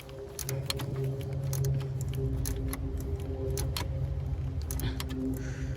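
Ratchet wrench clicking in quick, irregular strokes as the cartridge oil filter housing cap is snugged down, over a steady low hum.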